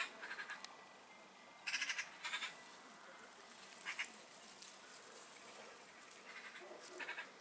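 Several short, harsh, rapidly pulsed animal calls, the loudest about two seconds in, with more near four seconds and near the end.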